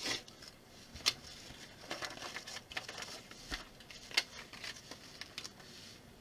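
Scattered sharp clicks and light rattles of small plastic building bricks being picked up and pressed together, the clearest about a second in and about four seconds in, with a faint rustle of a paper instruction sheet.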